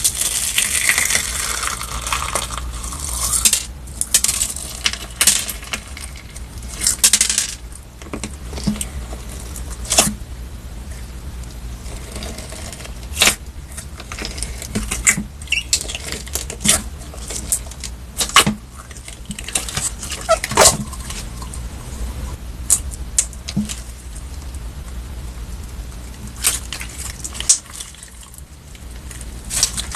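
Slime being squeezed and poked by hand, giving irregular sharp pops and clicks, with a brief hiss in the first few seconds.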